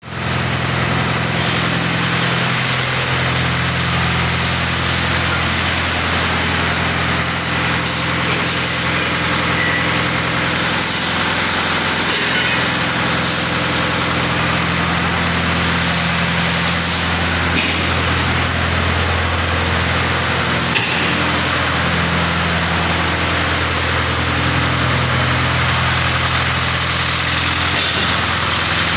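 Powder coating plant machinery running steadily: a constant low hum under an even rushing air noise, with a few faint clicks.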